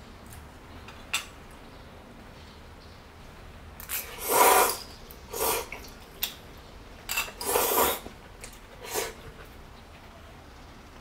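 Chopsticks and a spoon working through a pot of saucy spicy octopus-and-noodle stew: a light click about a second in, then a run of short wet scraping and sloshing sounds, the two longest about halfway through and about three quarters through.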